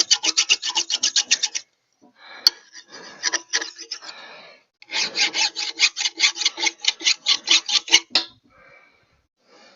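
Hand file rasping in quick back-and-forth strokes on the metal of a log splitter's hydraulic cylinder, taking down a burr. A fast run of strokes opens, lighter uneven filing follows after a short pause, and a second fast run stops a little before the end.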